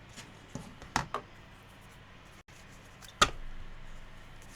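Quiet room tone broken by a few short, light clicks and taps from tarot cards being handled: two close together about a second in, and a sharper one a little past three seconds.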